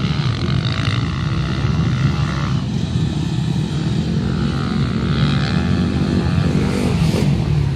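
Motocross bike engines racing, revving up and down as they ride round the track.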